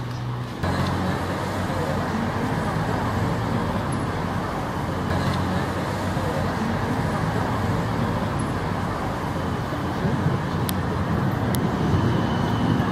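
Steady street traffic noise, a continuous rumble and hiss of passing vehicles.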